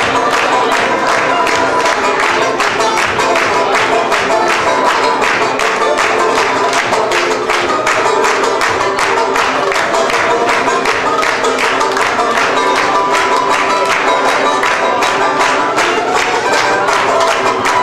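Solo banjo played in a fast, even stream of picked notes.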